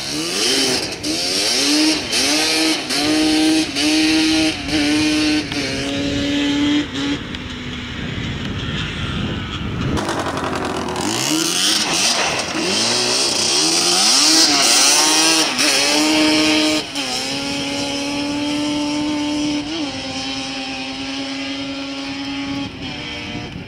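Yamaha Banshee 350 quad's two-stroke twin engine accelerating hard through the gears, its pitch climbing and dropping at each shift, in two runs; in the last several seconds it holds a steady pitch.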